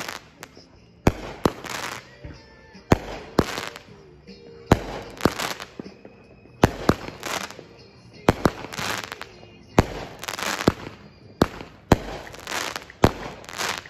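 Consumer firework cake (Brothers 'Blood Money', 49 shots) firing shot after shot. Each shot is a sharp bang followed about half a second later by a crackling burst, with a new shot roughly every one and a half to two seconds.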